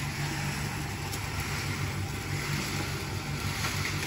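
Rotating drum roaster tumbling crackers in hot sand over a fire: a steady low mechanical hum under a continuous sandy hiss, with a few faint clicks.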